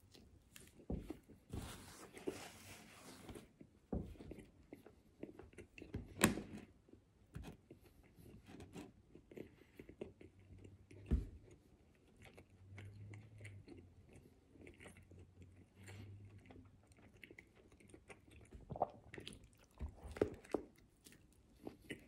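A person biting into and chewing a ham and cheese sandwich on soft bread close to the microphone: irregular wet chewing and mouth sounds, with a couple of sharper clicks.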